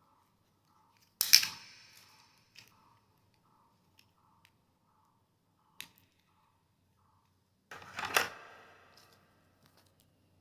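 Handling noise from items being unpacked and handled: two loud sharp rustling clatters, about a second in and again near eight seconds, with a few light clicks between them.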